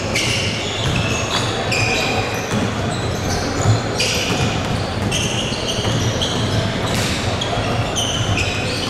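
Basketball game on an indoor court: a ball being dribbled, with players' shoes squeaking on the floor in many short, high squeals of shifting pitch.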